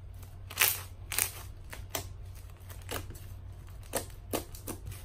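Slime being squeezed and poked by hand, giving a string of short, sharp pops and clicks, about seven of them.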